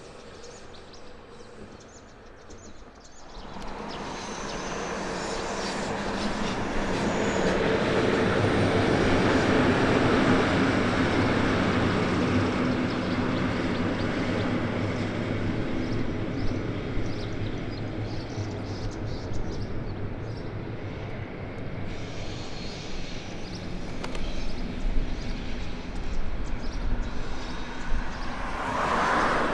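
Regional train, a red electric locomotive hauling double-deck coaches, passing over a railway bridge: its noise swells in a few seconds in and runs on steadily. A road vehicle approaches near the end.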